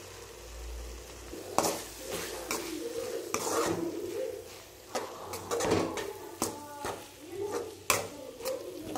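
A spoon stirring a thick onion-tomato masala in a metal kadai, scraping and knocking against the pan about once a second, over a faint sizzle of frying.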